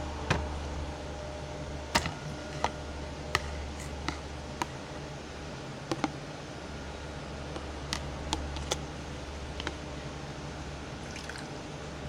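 Wet detergent-and-glue slime being kneaded and squeezed in the hand, giving irregular sticky clicks and pops, over a steady low hum.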